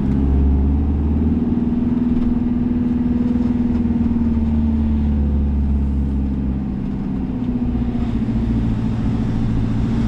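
Citroën Jumper camper van's diesel engine running steadily while the van drives slowly, with a deep rumble that eases off about two-thirds of the way through.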